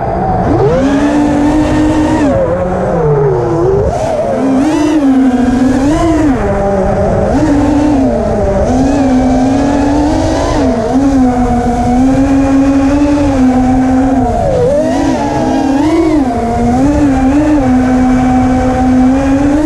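180 mm FPV racing quadcopter's brushless motors and propellers whining in flight, loud and continuous, the pitch swooping up and down with each throttle change and holding steady between them.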